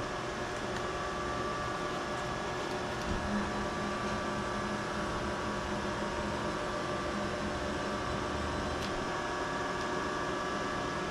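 Rebel Max CNC mill with a Fanuc OM control humming steadily while its axes are jogged by push button, with a lower drone added from about three to eight seconds in as the axis drives move the machine.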